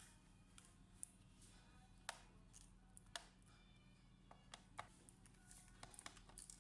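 Near silence: a few faint, sharp small clicks about a second apart, over faint background music.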